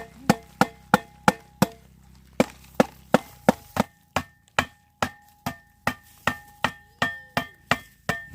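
A blade chopping steadily on wood, about three strokes a second with a short pause about two seconds in; each stroke leaves a brief metallic ring.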